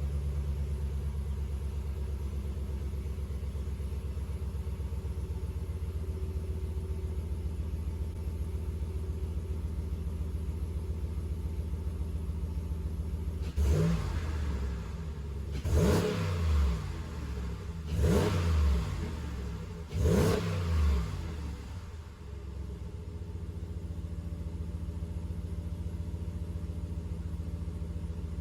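2019 Ram Rebel pickup's V8 on its stock exhaust idling steadily just after a cold start, then blipped four times at about two-second intervals, each rev rising and falling in pitch, before settling back to idle.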